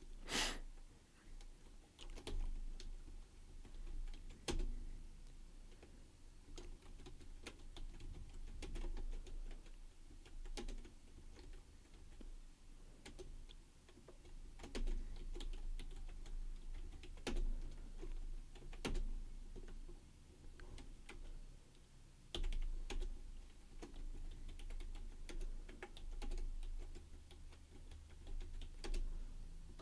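Typing on a computer keyboard: irregular keystrokes and clicks with pauses between, a sharp click right at the start.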